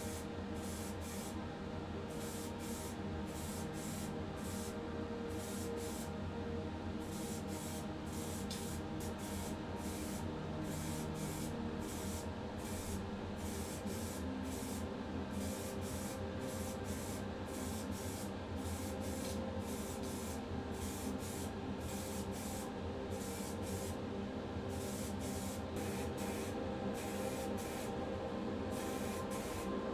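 Paint being sprayed onto a diecast metal casting: a steady spraying hiss over a low steady hum, flickering as the spray is let off and on.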